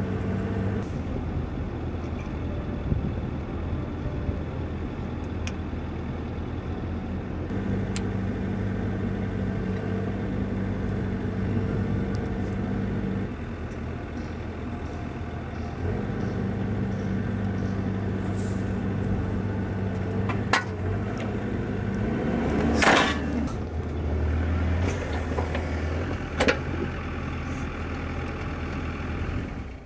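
An excavator's diesel engine runs steadily, its note stepping up and down a few times as the hydraulic grapple works, with a few sharp metallic clicks. About three quarters of the way through comes a loud, brief hissing burst ("BUSSSCHHH") as the beer can is crushed and sprays.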